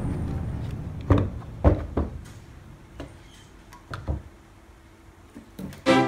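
Hollow plastic toy truck shells knocking and clicking against each other and a wooden tabletop as they are handled: about six short, sharp knocks spread over a few seconds. Music fades out at the start and a new piece begins near the end.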